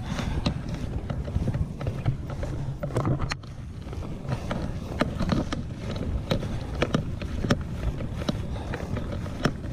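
Footsteps and the rustle of clothing and gear as a person walks over grass, with irregular knocks and a low rumble of wind and handling on the microphone.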